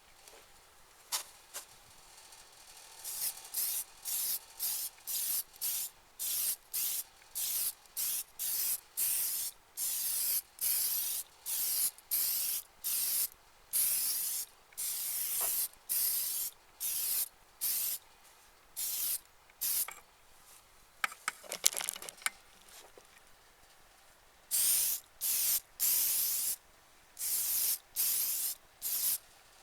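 Clear coat being sprayed from an aerosol can in many short, even passes, each a half-second hiss with brief pauses between, with a few clicks during a pause about two-thirds through.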